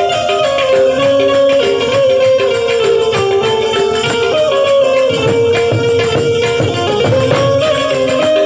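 Gujarati devotional folk music: a harmonium melody in held notes that step from pitch to pitch, over a steady rhythm of hand percussion with a jingling rattle.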